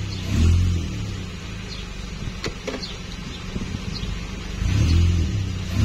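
Toyota Yaris engine idling, heard from inside the cabin as a steady low hum that swells a few times, with two sharp clicks about two and a half seconds in.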